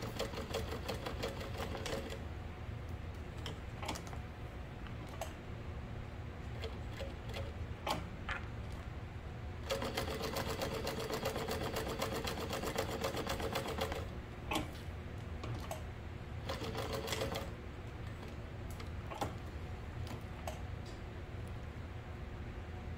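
Sewing machine topstitching a fabric flap, running at speed in bursts of rapid, even needle strokes: once at the start, for about four seconds in the middle, and briefly again later. Between the bursts it slows or stops, and a steady low motor hum runs underneath.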